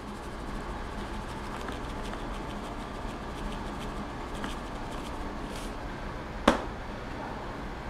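Steady hum of commercial kitchen ventilation, with one sharp knock about six and a half seconds in as a plastic seasoning shaker is set down on a steel counter.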